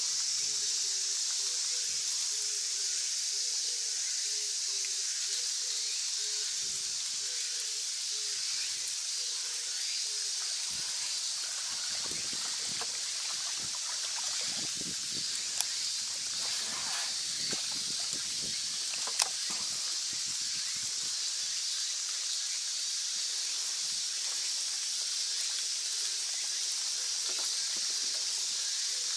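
Cicadas in the summer woods making a steady, high, hissing drone, with a few faint irregular knocks and two sharp clicks in the middle.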